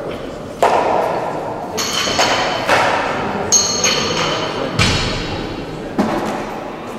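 Loaders changing the weight on a barbell: bumper plates sliding onto the steel sleeves and collars being fitted, a series of about seven knocks and clanks, some with a short metallic ring.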